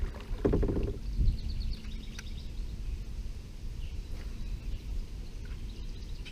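Outdoor river ambience heard from a kayak: a steady low rumble of open-air background noise with a few faint bird chirps about two seconds in.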